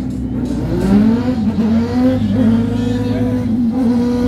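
Nissan GT-R R35's twin-turbo V6 running as the car rolls in, its revs rising and falling in short blips over a steady low engine drone.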